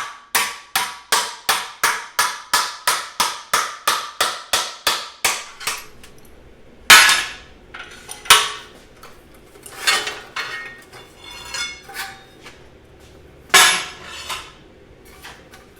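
Garland #1 split-head mallet hammering a 20-gauge sheet-steel flange over while the sheet is clamped in a vise. A quick, even run of about four blows a second for some six seconds, then a few heavier single blows spaced a second or more apart, each with a short metallic ring.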